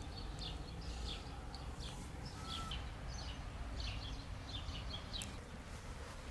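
Small birds chirping, many short high chirps in quick, irregular succession that thin out near the end, over a steady low rumble of outdoor ambience.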